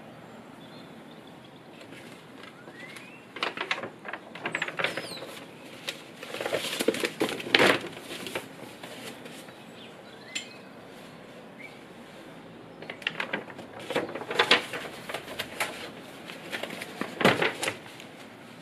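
Large sketchbook paper pages being turned and smoothed flat by hand: rustling and crackling in four bursts spread through, with a few faint bird chirps in the background.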